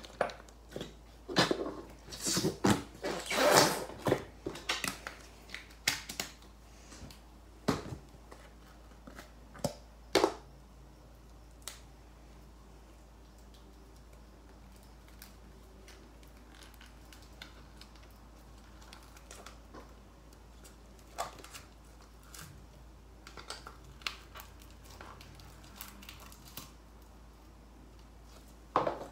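Stretchy slime being squished and pressed by hand, making sharp wet clicks and pops that come thick and loud for about the first ten seconds, then only a few faint ones later.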